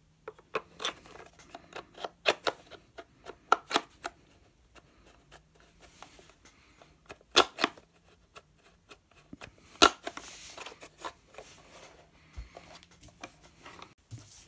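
Sharp clicks and knocks of a screwdriver against the hard plastic release clips of a Toyota Yaris steering-wheel airbag as the airbag module is pried free, with two loud snaps about halfway and two-thirds through.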